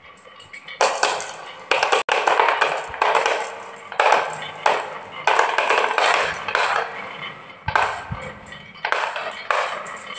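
Marbles rolling and clacking down a HABA wooden marble run: a string of repeated clattering bursts starting about a second in.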